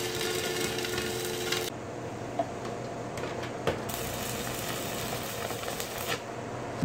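Stick arc welding on steel tube: the electrode arc crackles and sizzles steadily. The sound changes abruptly about two seconds in.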